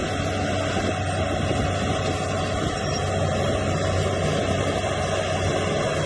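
Heavy earthmoving machine's engine running steadily, a continuous low drone.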